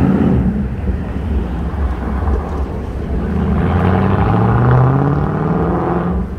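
City street traffic: cars passing close by over a steady low rumble. From about three and a half seconds in, one vehicle's engine accelerates, its pitch rising slowly, then fades near the end.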